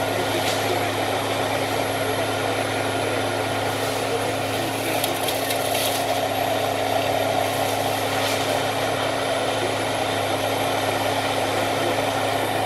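SEVE forestry mulcher on a Euromach R145 spider excavator running steadily as it shreds brush, its engine and spinning rotor making a constant hum. A few brief crackles are heard as material is struck.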